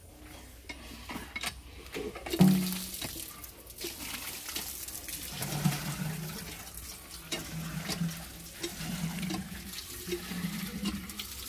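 Water from a hand-pump tube well gushing and splashing into a metal water pot, starting with a burst a couple of seconds in. The flow swells roughly once a second as the pump handle is worked.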